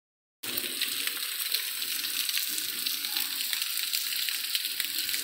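Rain falling steadily: an even hiss crackling with countless small drop impacts, starting just after a brief gap of silence.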